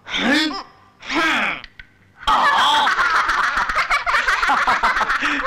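Cartoon character voices: two drawn-out cries that rise and fall in pitch, then, about two seconds in, a crowd of animal characters bursting into loud laughter together, jeering at the loser of a contest.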